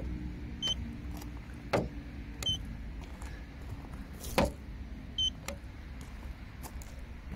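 Handheld paint thickness gauge giving a short high beep with each reading, three times a couple of seconds apart. Between the beeps come a few sharp knocks, the loudest about four seconds in, over a low steady rumble.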